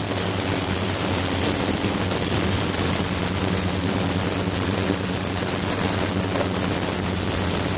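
Ultrasonic cleaning tank running with a glass jar standing in its bath: a steady hum with a hiss of cavitating, streaming water and a thin high whine.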